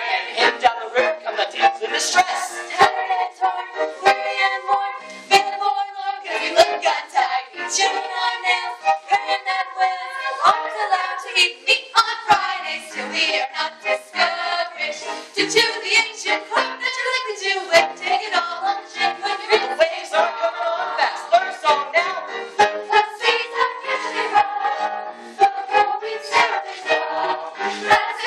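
Ensemble of teenage voices singing a musical-theatre song together, with instrumental accompaniment.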